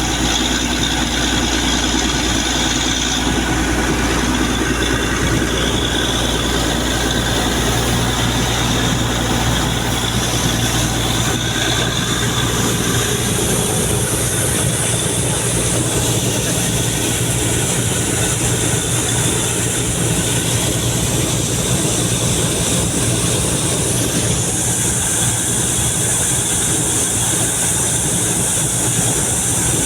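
Compressor running steadily during a borewell trial run: a loud, constant drone with a dense rushing noise over it. The deepest part of the rumble drops away about a third of the way in.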